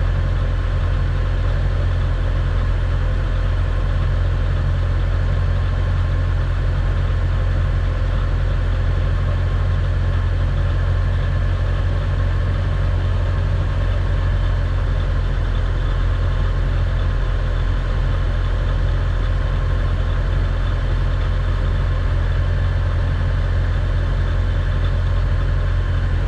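Mitsubishi Varica 1.1 engine idling steadily after its cylinder head was resurfaced and the head gasket replaced.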